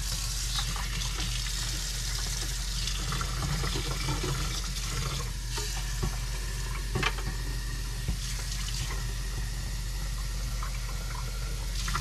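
Kitchen tap running steadily into the plastic water reservoir of a Keurig K-Express coffee maker as it is filled, with a few light knocks of plastic against the sink.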